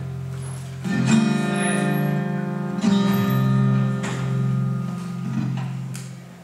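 Song playback with acoustic guitar: strummed chords that ring out, a new one struck every second or so, fading near the end.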